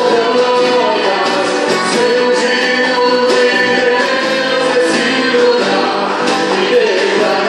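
Gospel music with singing voices over instrumental accompaniment, performed by a church worship group.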